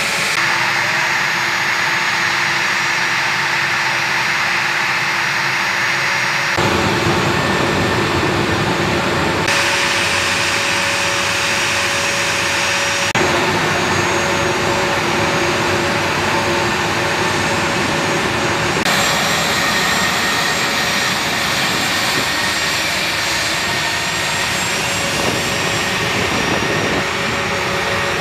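Flight-line jet engine noise: a loud, steady rush with a few held whining tones. The sound changes abruptly four times as it jumps from one shot's recording to the next.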